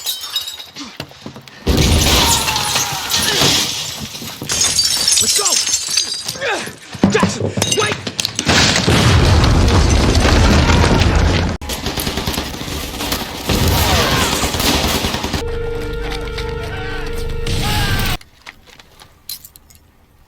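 War-film battle sound mix: bursts of gunfire and crashing, shattering debris with shouting voices and music under it. It changes abruptly several times and drops away near the end.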